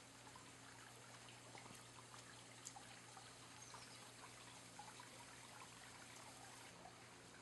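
Near silence: faint trickling of shallow water with scattered small ticks, over a faint low steady hum.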